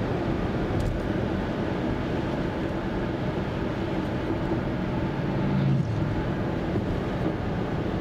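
Steady road and tyre noise with engine hum inside a 2014 Kia Forte5's cabin at highway speed, with a brief low hum swelling a little over five seconds in.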